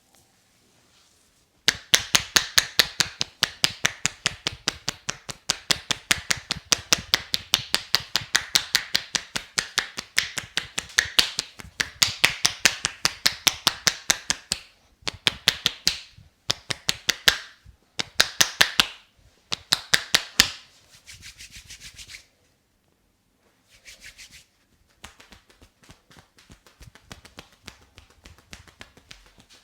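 Barber's scissors clicking in rapid runs of sharp metallic snips, several a second, with short breaks. They stop about 20 seconds in, and after that only faint rubbing and light ticks are left.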